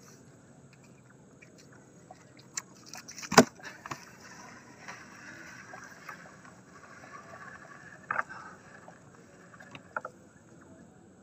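Gill net being hauled by hand from the river over the side of a boat: water splashing and running off the mesh, with several sharp knocks on the boat, the loudest about three and a half seconds in.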